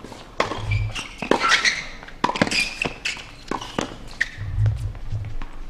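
Tennis rally on a hard court: a string of sharp knocks from racket strikes on the ball and ball bounces, about one every half second to a second.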